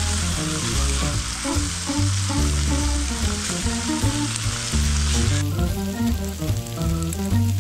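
Marinated pork sizzling on a cast-iron grill grate over a wood fire, with background music underneath. The sizzle cuts off suddenly about five and a half seconds in, leaving the music.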